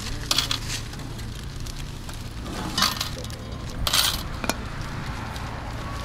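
Plastic shopping bag rustling and plastic milk bottles knocking together as they are packed, in a few short bursts, with a sharp tick about four and a half seconds in. A steady low hum runs underneath.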